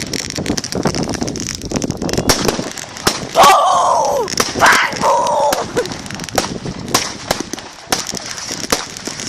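Fireworks exploding in rapid, irregular crackling pops and bangs, with two loud high-pitched falling tones about three and a half and five seconds in.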